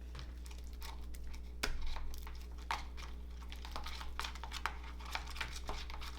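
Slime being squished and stretched by hand: irregular small sticky clicks and crackles, with a louder pop a little under two seconds in.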